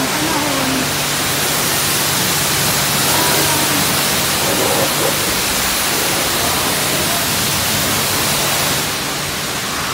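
High-pressure wand at a self-serve car wash spraying water against a car's side panels: a steady loud hiss of spray that eases off a little near the end.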